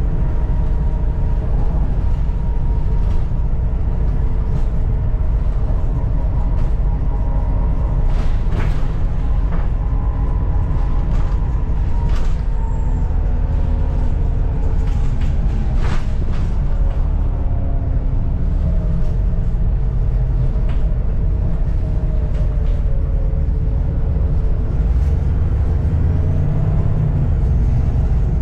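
Volvo B7TL double-decker bus heard on board under way: its diesel engine runs with a steady low rumble, with whining turbo whistle and driveline tones that shift in pitch as it changes speed. Several sharp knocks and rattles from the old bodywork come through.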